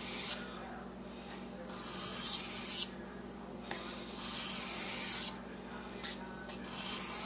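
Slow, even hand strokes of an abrasive rubbing along a hardened O1 steel knife blade, a rasping stroke about a second long, repeated roughly every two and a half seconds.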